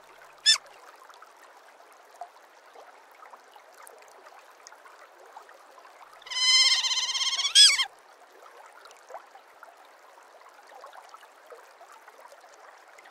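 Otter calls: one short high chirp at the very start, then about six seconds in a loud, high-pitched squealing call lasting about a second and a half that rises in pitch at its end. A faint steady hiss runs behind.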